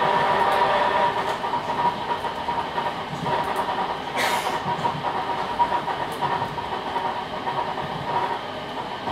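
Suburban electric train running at speed, heard from inside the carriage: a steady running noise with a steady whine over it and the faint click of the wheels on the rails. It gets a little quieter about a second in, and there is a short hiss about four seconds in.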